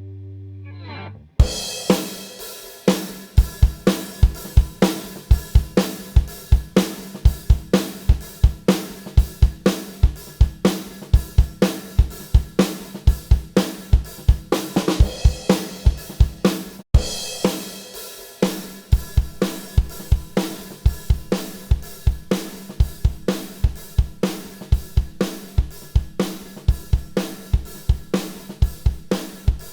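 Recorded drum kit playing a steady groove of kick, snare, hi-hats and cymbals, used as the test track for comparing LA2A-style opto compressors. It cuts out for a moment about seventeen seconds in, where the playback is switched. It starts just after a sustained electric-guitar chord fades away in the first second.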